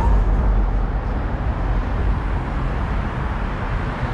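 Road traffic on a city street: a steady, noisy rumble of passing cars, heaviest in the low end.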